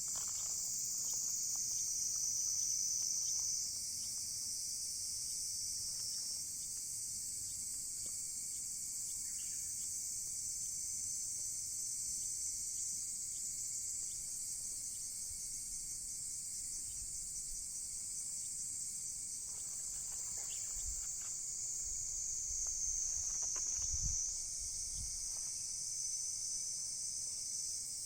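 A steady, high-pitched chorus of insects, dense and pulsing, with faint scattered crackles from a burning wood fire.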